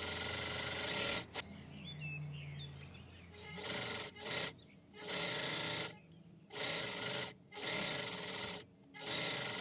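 Singer serger (overlock machine) stitching fabric, running steadily for about a second, pausing, then running in about five short stop-start bursts of roughly a second each.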